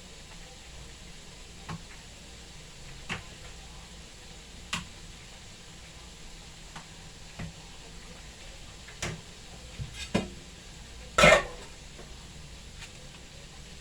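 Kitchen handling sounds: scattered short clinks and knocks of utensils and dishes, the loudest about 11 seconds in, over a steady low hiss of chicken frying in oil.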